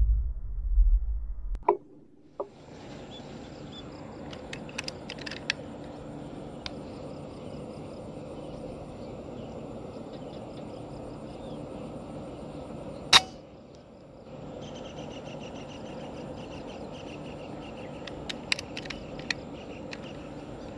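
A low boom dies away in the first second and a half. Then comes steady outdoor ambience with a high chirring of insects and birds, broken by a few sharp clicks and knocks from the air rifle being handled, the loudest about 13 seconds in.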